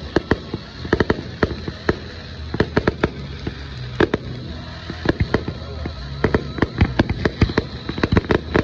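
Fireworks display: aerial shells bursting in a rapid, irregular string of sharp bangs and crackles, several a second.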